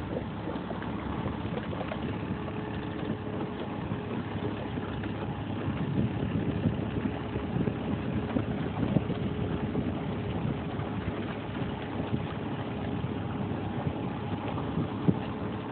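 Outboard motor of a small motorboat running slowly, a steady low hum with a faint even tone, under wind and water noise.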